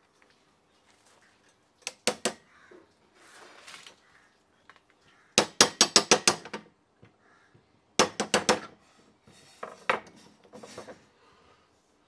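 Sharp metal clicks and clinks in quick runs of several, from a washing machine motor being taken apart with a screwdriver. The steel end cover and its bolts knock against tools and housing, with faint scraping in between.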